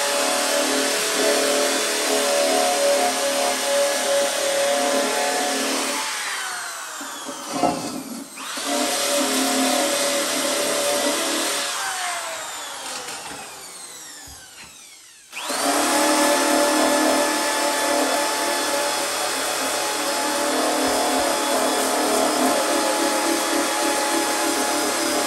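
Electric DeWalt drill spinning an abrasive disc against the painted steel edge of an air cleaner housing, cleaning it up for welding. Twice the trigger is let go and the drill winds down with a falling whine, about six and about twelve seconds in. Each time it starts up again, and there is a single knock around eight seconds in.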